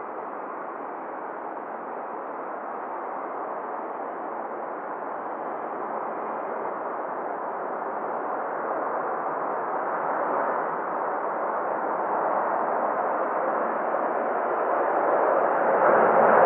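Boeing 787-9 airliner on approach to land, its engine noise a steady rushing hiss that grows gradually louder as it nears and is loudest near the end.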